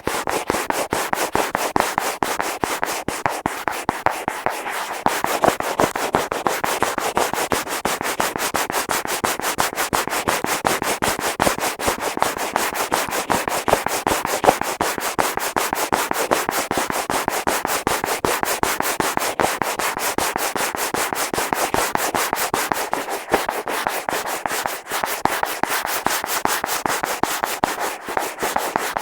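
Fingers scratching on and around an Apple earphone microphone fixed to a wall: a dense, fast, steady run of scratchy rubbing strokes close on the mic.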